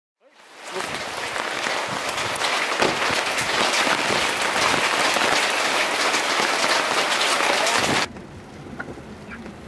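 Heavy rain pouring down as a dense, steady hiss, fading in over the first second. About eight seconds in it cuts to a much quieter hiss.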